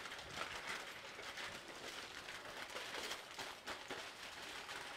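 Aluminum foil crinkling and rustling softly as hands fold it up into a packet around a meat roast, with many small crackles.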